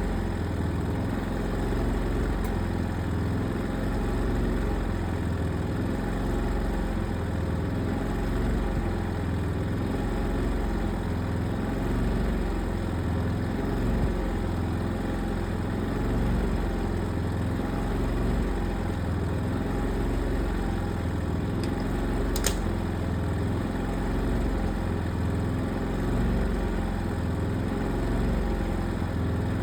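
An engine idling steadily, its low hum swelling and fading about once a second. There is a brief sharp high tick about three quarters of the way in.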